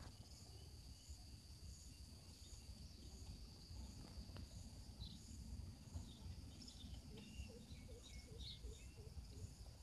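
Faint outdoor ambience: a steady high insect buzz with regularly repeating chirps, joined about halfway by small chirping bird calls, over a low rumble.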